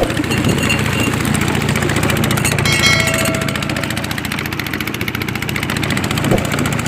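Small boat engine running steadily, with a brief high-pitched tone about three seconds in.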